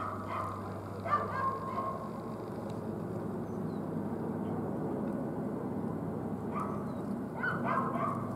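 A dog giving short, high calls in two bouts, near the start and again near the end, over a steady low hum.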